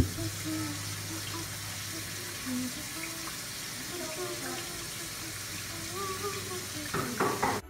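Kitchen faucet running steadily into a sink while dishes are washed by hand with a sponge. A sharp knock comes right at the start, and a few louder splashes come near the end, just before the sound cuts off.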